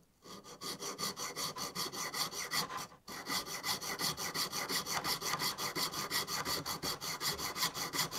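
Junior hacksaw cutting through the black plastic connector housing of a Toyota Prius inverter cover, in quick, even back-and-forth strokes with a brief stop about three seconds in.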